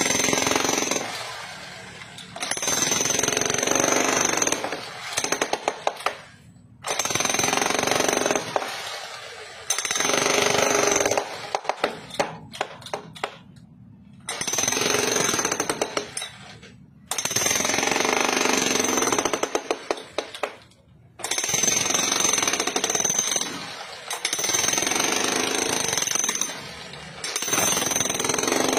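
Corded electric demolition hammer with a flat chisel bit chipping into a wooden log. It hammers in repeated bursts of one to three seconds, with short pauses between them.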